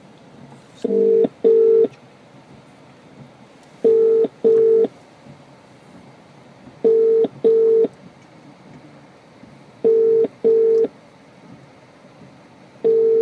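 British telephone ringback tone on a call recording: the outgoing call ringing unanswered at the far end. It repeats the double ring, two short buzzes about every three seconds, four full times and the start of a fifth near the end.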